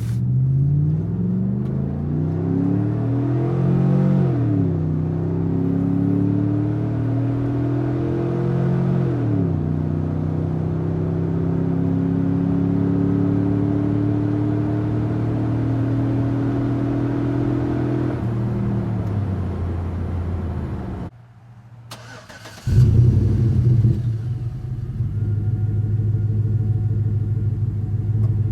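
V8 exhaust of a 2013 Chevrolet Tahoe through a Hooker Aero Chamber muffler on stock manifolds and catalytic converters: the engine pulls up through the gears with two rising sweeps and upshifts, holds a steady cruise, then eases off. Near the end a separate clip starts with a sudden loud burst as the engine fires, settling into a deep, steady idle.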